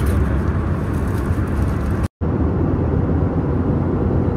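Steady drone of jet airliner cabin noise, with a strong low rumble of engine and air noise. It cuts out for an instant about two seconds in.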